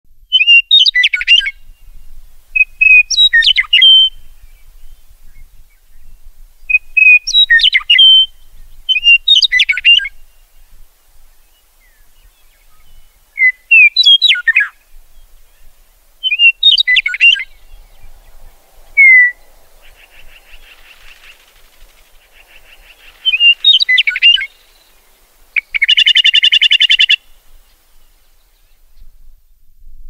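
Meadowlark singing: short phrases of slurred whistled notes, one every two to three seconds, with a harsh buzzy chatter call near the end.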